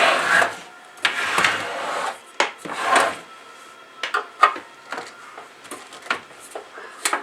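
Cover of an old CB base station radio being worked loose and slid off: scraping and rubbing in the first three seconds, then a string of short clicks and knocks.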